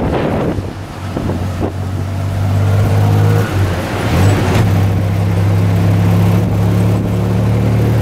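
Tuk-tuk's small engine running steadily under way, heard from the open passenger seat, with a brief dip in its note about halfway through.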